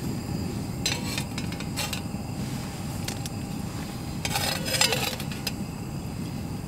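Canister gas camp stove burning with a steady low roar, while a metal camp frying pan clatters: clinks about a second in and again near two seconds, then a louder rattle and ring as the pan is set down on the burner a little past the middle.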